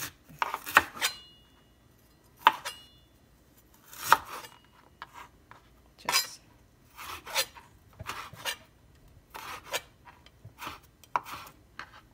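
Kitchen knife cutting ginger on a cutting board: irregular knocks and scrapes, roughly one a second, with a short metallic ring twice in the first few seconds.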